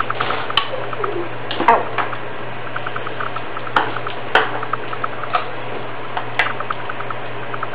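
Metal spoon clinking and scraping in a stainless steel bowl of chopped onions as they are stirred, a sharp clink every second or so, over a steady low hum.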